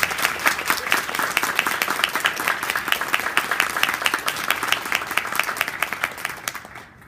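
A small audience applauding: many hands clapping steadily, thinning and fading out near the end.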